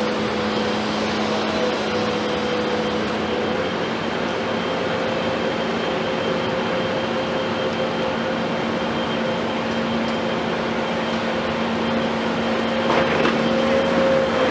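Komatsu PC210 excavator's diesel engine running steadily at constant speed, a drone with an unchanging pitch. A faint knock comes near the end.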